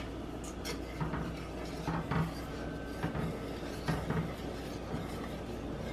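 A wire whisk scraping and clinking against the sides and bottom of a stainless steel saucepan as it works through a thick cheese sauce, in uneven strokes about once a second.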